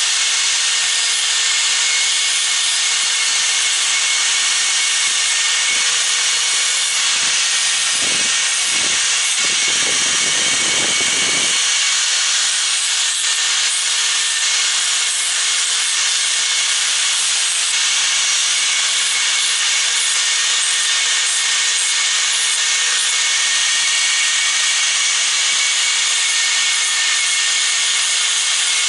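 Electric angle grinder running steadily, its cut-off disc grinding the edge of a small metal bracket: a continuous harsh grinding hiss over the motor's steady whine. A few dull knocks come about a third of the way in.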